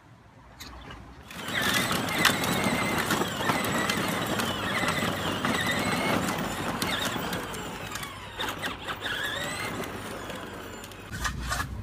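A 12-volt Peg Perego John Deere Ground Force ride-on toy tractor pulling away about a second in and driving along, its electric drive whining and shifting in pitch over the rumble of hard plastic wheels and a towed trailer on brick paving.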